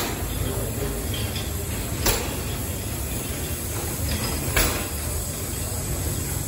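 Large horizontal stationary steam engine running, a steady mechanical noise with a sharp knock repeating about every two and a half seconds.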